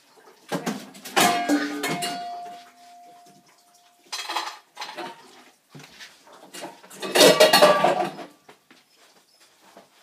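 Dog bowls clattering in a kitchen sink as a puppy pushes them around: three bouts of clatter, the first leaving a bowl ringing for about two seconds.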